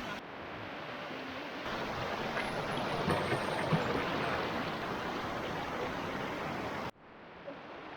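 Rushing water of a waterfall and stream, a steady hiss of falling and running water that drops suddenly to a quieter rush near the end.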